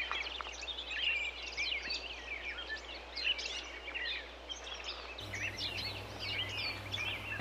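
Many small birds chirping and twittering at once, a dense bed of short, overlapping high calls over a faint hiss. A faint low hum joins about five seconds in.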